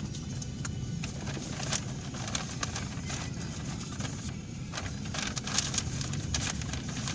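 Steady low rumble of a car's engine and tyres heard from inside, with irregular clicks and ticks over it, like rain pattering on the car.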